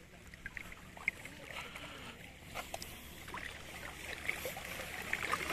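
River water sloshing and lapping, with small scattered splashes and drips, around a person standing and moving waist-deep. Faint voices come in near the end.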